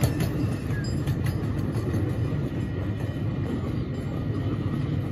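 Miniature park railroad's freight cars and caboose rolling past on the track: a steady low rumble, with a few wheel clicks over the rail joints in the first second or so, slowly fading as the train moves away.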